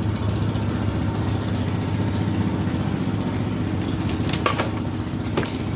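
Steady low mechanical rumble of a running machine, with two short clicks near the end.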